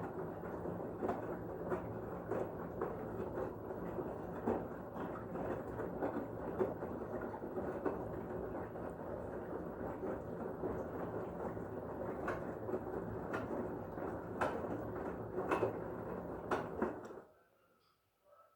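LG washing machine's drum turning during a wash cycle, a steady churning with scattered clicks and knocks from the load, stopping abruptly about 17 seconds in.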